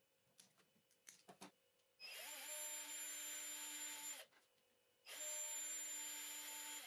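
A few quick scissor snips, then a small electric drill runs twice with a steady whine, about two seconds each time, the second run starting about five seconds in.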